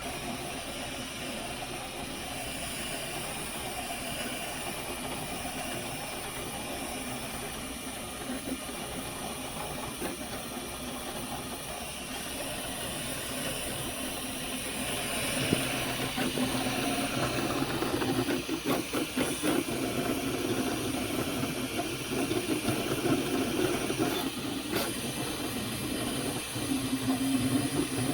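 Flashforge Adventurer 5M 3D printer running mid-print: a steady fan hiss, joined about halfway through by a louder motor hum whose pitches keep shifting as the print head moves.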